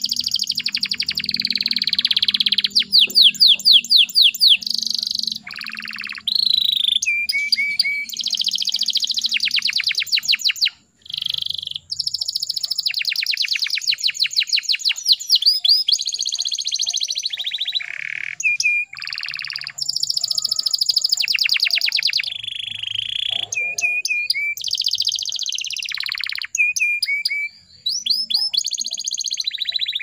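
Canary singing a long song of fast repeated trills and rolling notes, broken only by a couple of short pauses.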